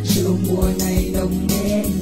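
Background music with held notes over a steady bass and beat.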